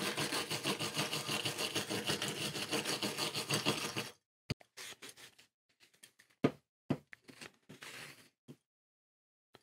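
Wire scratch brush scrubbed rapidly back and forth over the teeth of a steel gear rack, a steady rasping scrape that stops about four seconds in. After it come a few lighter scuffs and a single sharp click as the rack is handled and wiped.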